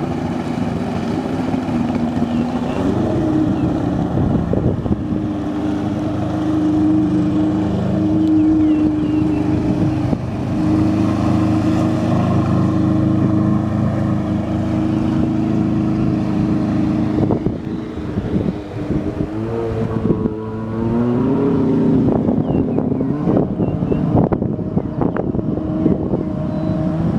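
Jet ski engine running, its pitch shifting up and down a few times as the throttle changes, with wind buffeting the microphone.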